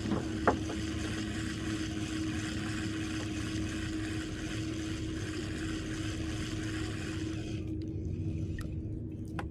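Steady drone of a boat engine holding one pitch, with a single sharp click about half a second in.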